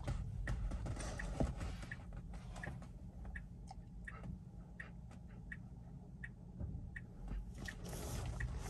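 Tesla turn-signal indicator ticking at an even pace, about three ticks every two seconds, over a low steady cabin hum.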